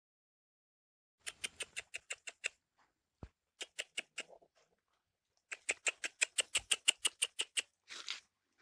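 Rapid runs of sharp clicking chirps from a small animal, about seven clicks a second, in three runs, the last and longest near the end.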